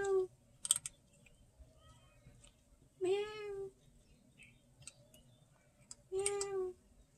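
Kitten meowing: short, high, even-pitched meows about three seconds apart, with a few sharp clicks between them.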